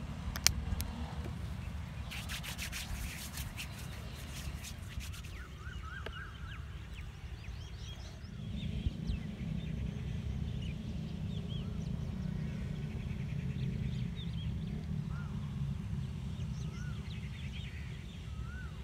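Outdoor ambience: wind rumbling on the microphone, with birds chirping now and then and a quick run of clicks in the first few seconds.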